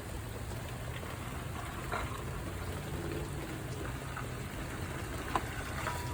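Steady rain falling, with a few louder single drips. Near the end a repeating high beep starts.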